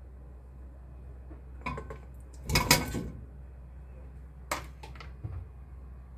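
Kitchenware clattering: a handful of separate knocks and clinks of dishes and pots being handled, the loudest and longest about two and a half seconds in, over a low steady hum.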